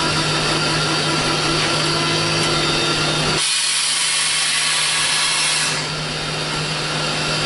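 Cab noise of the S.P.L.CO. #28 steam locomotive under way: a steady hiss and mechanical rattle over a low hum. From about three and a half seconds in to about six seconds, a sharper high hiss takes over while the low rumble drops away.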